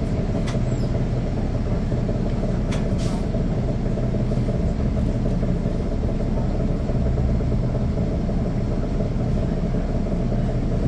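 Caterpillar C13 ACERT inline-six diesel of a NABI 40-foot transit bus running steadily, heard from the back of the bus's cabin, with a few brief clicks or rattles in the first three seconds.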